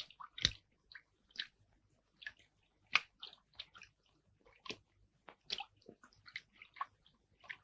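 Faint, irregular clinks and taps of crockery and glassware being set out on a table.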